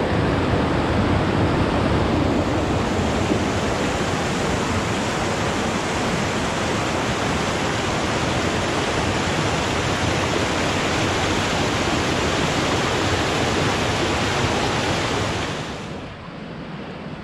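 Mountain creek rushing and tumbling over boulders in small whitewater cascades: a loud, steady rush of water that drops off sharply near the end.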